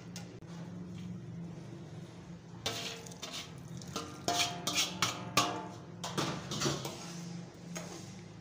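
Metal spoon clinking and scraping against an aluminium cooking pot as carrots and sugar are stirred. There are about eight sharp, ringing knocks from a couple of seconds in, over a low steady hum.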